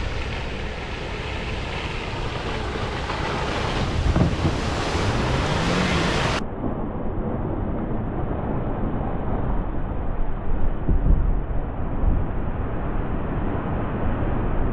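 Wind noise on the microphone over a 4x4's engine revving up and down as it works on slippery ground. The sound turns duller about six seconds in.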